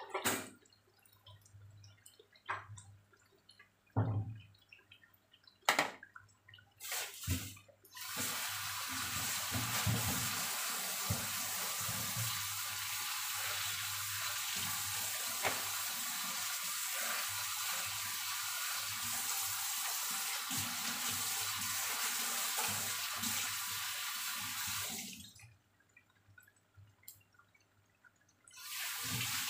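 A few sharp pops from oil spattering around tempe fritters frying in a wok, then from about eight seconds in a kitchen tap runs steadily for some seventeen seconds and is shut off suddenly, running again briefly near the end.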